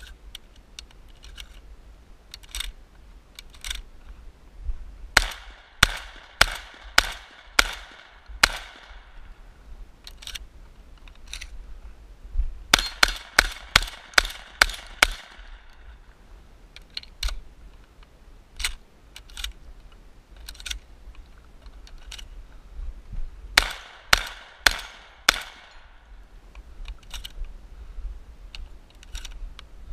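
Shotgun fired close to the microphone in three fast strings of about six to eight shots each, two to three shots a second, with fainter clicks and knocks between the strings.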